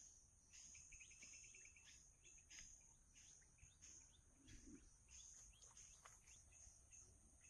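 Faint outdoor ambience: a steady high insect drone, with small birds chirping, including a quick trill of repeated chirps about a second in.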